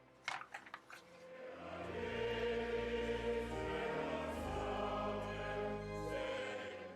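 Choir singing a long sustained chord that swells in about a second and a half in and fades away near the end, after a few brief sounds at the start.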